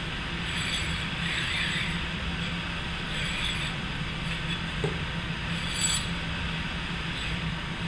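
LM8UU linear ball bearing in an aluminium housing slid back and forth by hand along a freshly oiled 8 mm steel rail, its balls rolling in several strokes, with a short metallic click about six seconds in. The freshly rebuilt bearing is being tried for smooth running.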